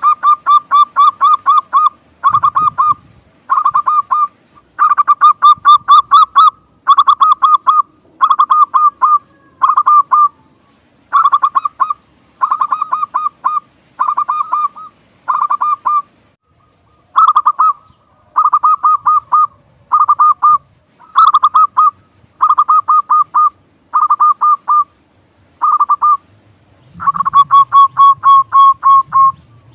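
Zebra dove (perkutut) cooing in short bursts of quick repeated notes, a new burst about every second.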